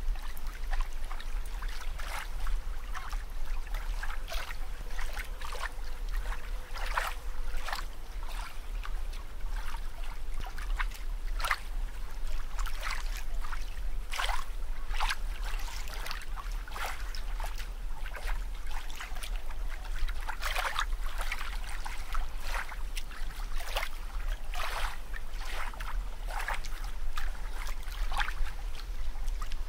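Bubbling, trickling water: irregular small bubble pops and splashes over a steady low rumble, like an underwater or aquarium sound bed.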